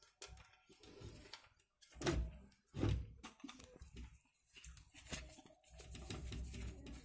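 Handling noises from working on a CRT television: scattered clicks, taps and rustling as wires and the picture tube's anode lead are moved against the tube. There are two louder knocks about two and three seconds in.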